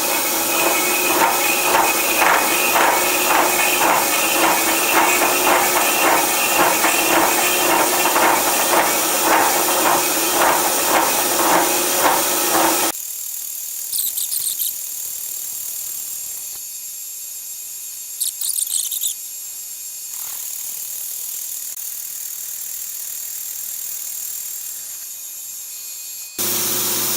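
Milling machine running a 4-inch slitting saw at about 125 RPM as it cuts a kerf, a steady grinding drone pulsing about twice a second. About halfway through it stops abruptly and gives way to a quieter steady hiss with two short high squeaks.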